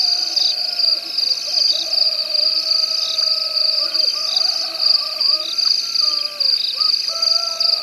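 Night chorus of insects: a steady high-pitched trill, pulsing about once a second, with lower, long wavering calls underneath.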